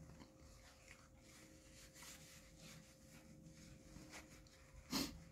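Near silence with faint scattered rustles of a paper napkin wiped across the mouth. Near the end comes one short, louder noise.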